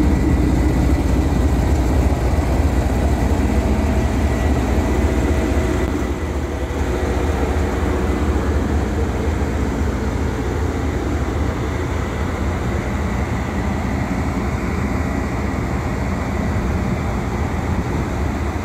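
2003 Corvette Z06's 5.7-litre LS6 V8 idling steadily, becoming a little quieter from about six seconds in.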